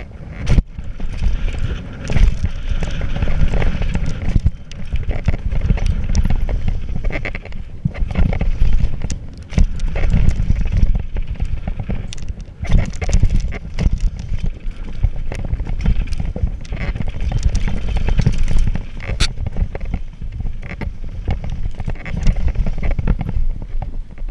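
Radon Swoop 200 downhill mountain bike ridden fast down a dirt jump line: tyres rolling over dirt and wind buffeting the camera microphone, with frequent clatters and knocks from the chain and frame over bumps and landings.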